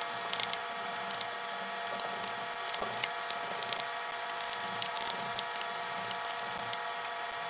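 Scattered small clicks and ticks of a precision screwdriver backing out the fan and heatsink screws inside a MacBook Pro laptop, over a faint steady hum.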